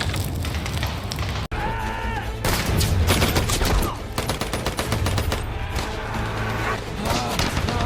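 Film battle soundtrack of dense WW2 small-arms fire, rifle and machine-gun shots overlapping rapidly, broken by a sudden cut about one and a half seconds in.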